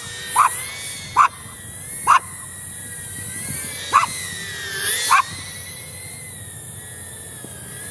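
A dog barks five times, single sharp barks spread over about five seconds, over the steady high whine of a small quadcopter drone's propellers, which drifts slightly in pitch as it flies.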